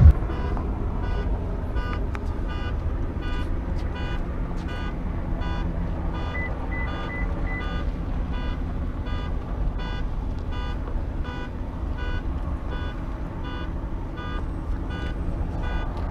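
Electronic beeping repeating about twice a second over a steady low rumble, with a quick run of four higher beeps about six seconds in.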